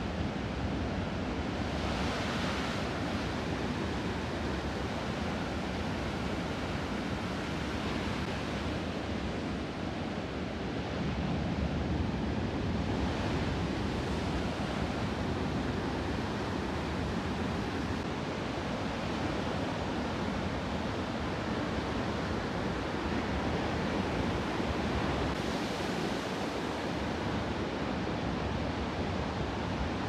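Ocean surf: a steady rush of waves, with a louder hissing surge each time a wave breaks, four or so times.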